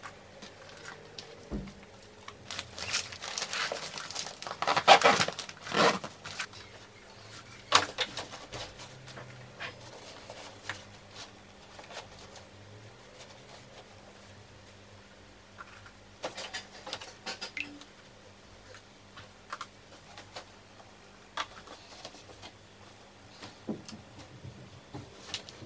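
Clothes and a fabric backpack being handled while a suitcase is packed: scattered rustles and light taps, with a louder stretch of rustling a few seconds in.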